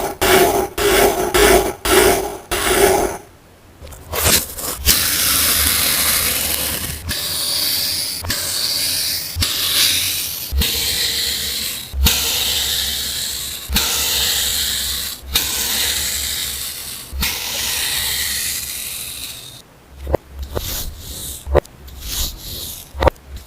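Kinetic sand being cut and crumbled. A quick run of short strokes comes first, then long hissing, scraping strokes a second or two each, and it ends with a run of short crisp clicks.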